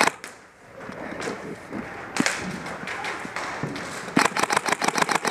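Airsoft guns firing: one sharp crack right at the start, scattered single shots and knocks, then a rapid string of shots at about seven or eight a second from about four seconds in.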